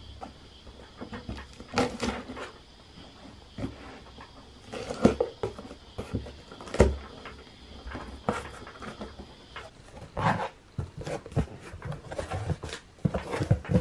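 Cardboard shipping box being handled and opened by hand: irregular scrapes, taps and rustles of cardboard, tape and packaging.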